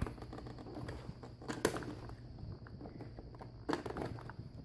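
Small clicks and handling noises of plastic retaining clips being worked onto a replacement car door handle, a few sharp ticks over a low steady hum.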